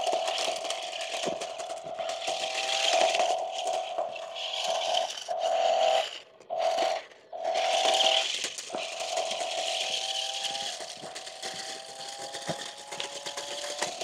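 Electric drive motors of a 1:16 scale RC stunt drift car whining steadily, the pitch shifting a little with speed, while loose gravel rattles and clicks under its wheels. The whine cuts out twice for a moment around the middle.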